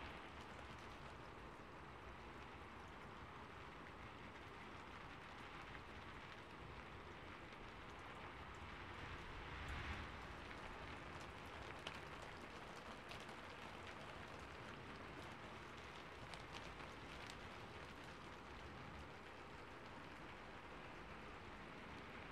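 Steady rain falling, an even hiss with scattered sharper drop ticks and a brief swell about halfway through.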